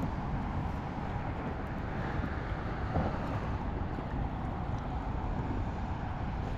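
Steady wind rumbling on the microphone on open water, with one faint knock about three seconds in.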